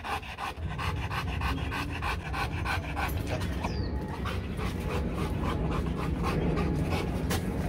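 Rottweiler panting rapidly with its mouth open, about four to five breaths a second, over a steady low rumble.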